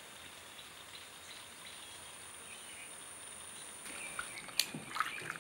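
Faint steady background hiss with a thin high steady tone, then about four seconds in, water splashing and sloshing with sharp clicks: a hand washing a garden egg in a sink basin of water.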